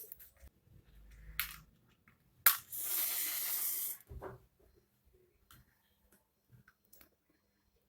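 A flame being lit to heat the thermistor: a sharp click, then about a second and a half of steady hissing, then a knock.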